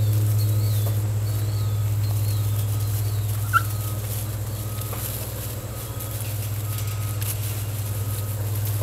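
A steady low hum with faint short beeps repeating about once a second, and a single brief high squeak about three and a half seconds in.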